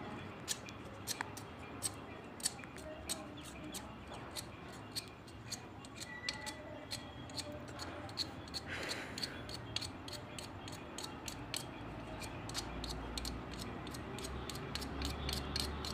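Small blade scraping paint off the end of a PVC water pipe in quick short strokes, about three or four a second. The paint is being stripped so the joint will not leak.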